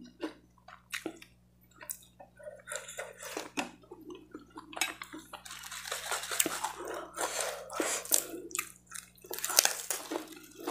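Water splashing and dripping as a wet head of lettuce is lifted out of a metal pot of water, with crisp rustling as a leaf is broken off. A few light clicks come in the first couple of seconds.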